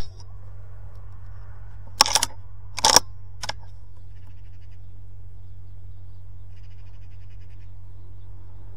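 Air rifle being handled between shots, likely cocked and reloaded: a few sharp mechanical clacks about two and three seconds in, over a steady low hum.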